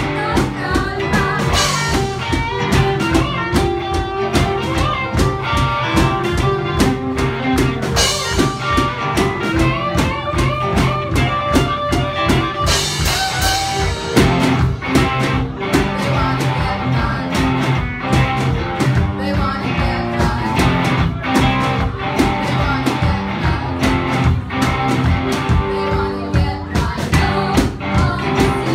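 Live rock band music: an Epiphone Les Paul electric guitar played through an amplifier over a drum kit keeping a steady beat, with cymbal crashes now and then.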